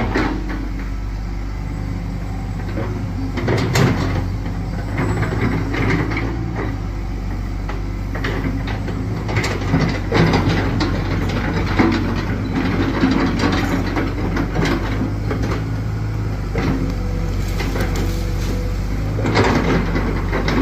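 Excavator's diesel engine running steadily, with irregular metallic clanks and scrapes over it, the loudest about 4, 10, 12, 14 and 19 seconds in.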